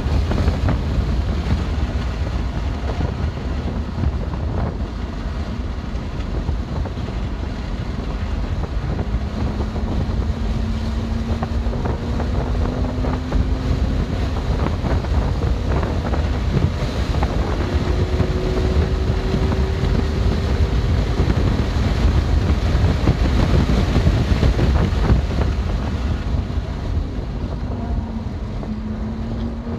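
A 2020 BMW M2 Competition at speed on a track: heavy wind and road rumble on the microphone, with the car's twin-turbo inline-six heard faintly beneath. The engine note climbs slowly under acceleration a few times.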